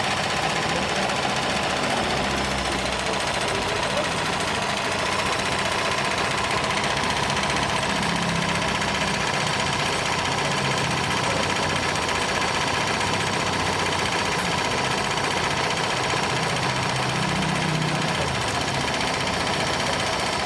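Janome NS 385 sewing machine, driven by its external motor, running steadily at a constant speed while sewing a test row of a decorative stitch pattern. It stops abruptly at the end.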